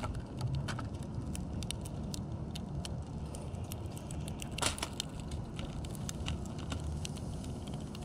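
House finches pecking and cracking seed in a clear plastic window feeder close to the microphone: quick irregular clicks and ticks, with one louder click about halfway through, over a steady low rumble.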